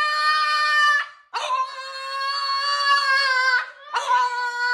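Long, held howling cries at a steady pitch, falling a little at the end of each. One is ending about a second in, a second lasts a little over two seconds, and a third starts near the end.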